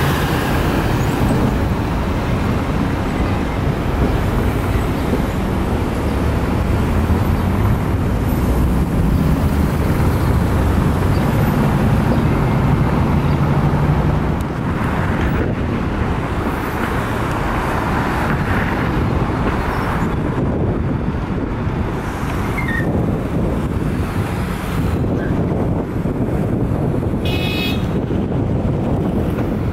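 Heavy vehicle engines and expressway traffic noise. A low engine drone holds for about the first half, then eases off. A brief high-pitched toot comes near the end.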